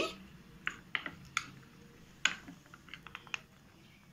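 Steel spoon clicking against a small white bowl while stirring cornflour mixed with water. The clicks are sharp and light, spaced irregularly, with a quick run of them about three seconds in.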